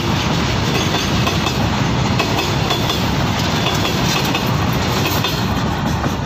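Freight train of covered goods wagons passing close at speed: a loud, steady rumble and rattle of wheels and wagon bodies on the track, with the last wagon going by at the very end.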